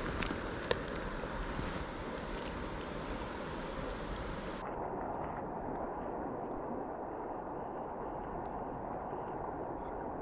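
Mountain stream water flowing in a steady rush, with a few faint clicks early on. About halfway through it abruptly becomes duller and more muffled.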